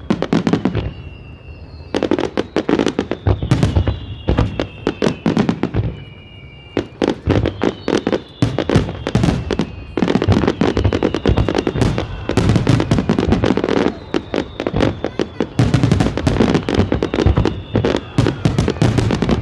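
Aerial fireworks bursting in rapid, dense barrages of sharp bangs, with short lulls between volleys.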